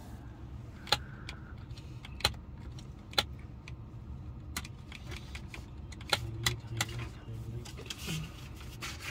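Plastic fold-down coat hook in a Tesla Model Y's rear roof trim being flipped and snapped back by hand, giving sharp clicks a second or so apart that come faster after about six seconds. The hook does not close properly, a fault the owners want fixed.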